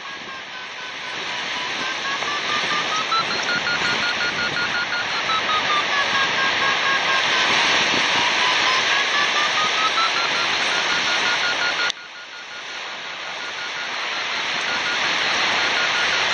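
Rushing wind on the microphone during a winch-towed paraglider climb. Over it a paragliding variometer sounds: a tone that slides slowly up and down in pitch and turns into rapid beeps at its higher pitch. The rushing drops suddenly about twelve seconds in, then builds again.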